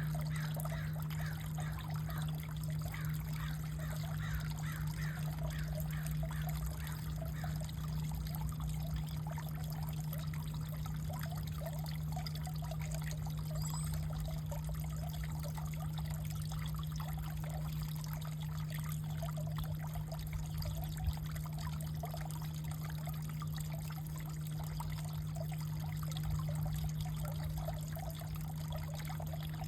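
Water trickling, with a steady low hum underneath.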